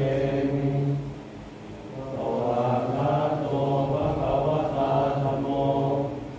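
Group of Buddhist monks chanting in unison, male voices holding a low, steady recitation. It breaks off for a breath about a second in and picks up again about two seconds in.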